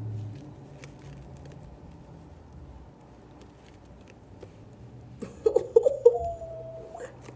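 Faint light clicks and rustles of packaging being handled as hair bundles are taken out. About five seconds in comes a loud, wavering voice-like call that ends on a held note.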